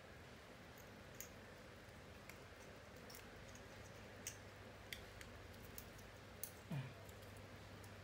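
Faint, scattered small clicks of a Bulova wristwatch being handled as its caseback is clipped back onto the case, with a brief sound falling in pitch near the end.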